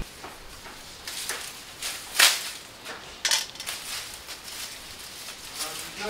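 Scattered crunches and sharp cracks of dry twigs and leaves being handled or trodden on, with the loudest crack about two seconds in and another about a second later.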